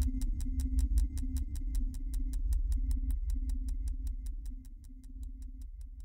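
Acousmatic music built from camera sounds: an even run of sharp mechanical clicks, about six a second, over a low throbbing hum and a pulsing mid-pitched tone, the whole texture slowly fading away.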